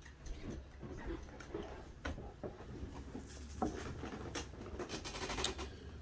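Soft, irregular clicks, taps and rustling from small fly-tying tools being handled as a wire whip finisher is fetched and brought to the thread.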